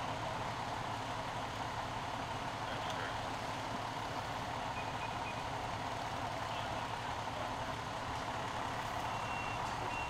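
Fire truck's diesel engine running steadily on scene, a continuous drone with a low rumble underneath.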